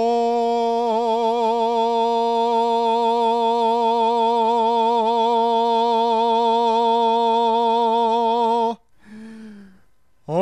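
A man's singing voice holding one long note with a slight vibrato, scooping up into it at the start. It breaks off after about nine seconds for a short falling sound, and a second long note starts near the end.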